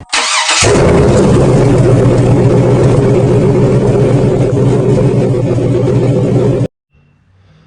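A loud engine running at a steady speed, coming in about half a second in and stopping abruptly near the end.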